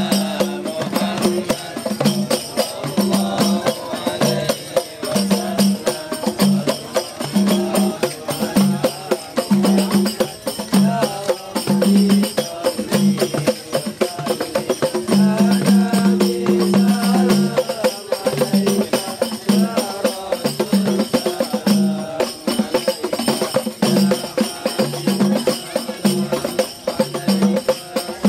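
Hand-beaten rebana frame drums playing a steady repeating rhythm of deep and higher strokes, with male voices singing over them.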